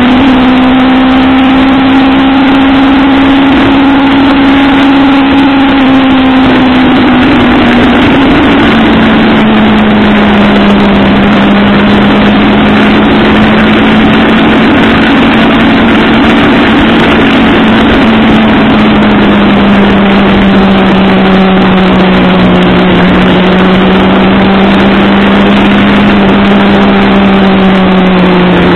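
Motorcycle engine running at a steady cruising speed under loud wind rush. The engine note drops a little about eight seconds in, then holds level.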